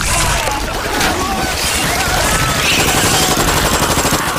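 Rapid automatic rifle fire in a dense film sound mix, running continuously from about a second in.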